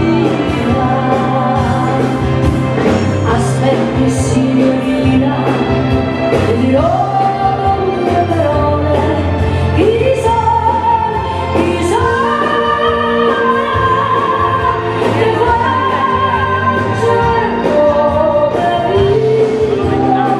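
Live band music with a singer, long held sung notes over a steady bass line.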